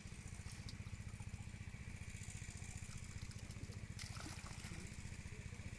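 A small engine runs steadily with a rapid, even low putter throughout. Hands slosh and splash in muddy shallow water, most sharply about four seconds in.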